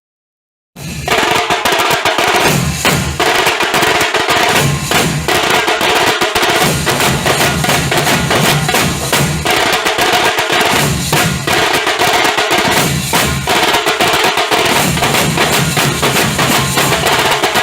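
Nasik dhol ensemble drumming: dhol drums with tasha, playing a fast, dense, unbroken beat that starts suddenly about a second in.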